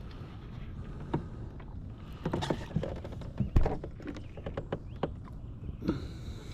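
Scattered knocks and bumps on a kayak over a steady low rumble, with one louder thump about three and a half seconds in.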